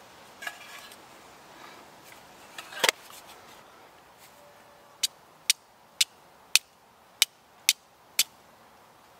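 Flint and steel: a steel striker scraped sharply down a flint seven times, about two strikes a second, to throw sparks onto char cloth. Before the strikes, a few handling noises, the loudest a knock about three seconds in.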